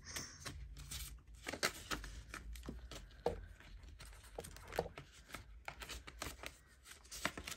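Australian polymer banknotes and cash-binder pockets being handled while the money is counted: irregular rustling and crinkling with many small clicks and taps.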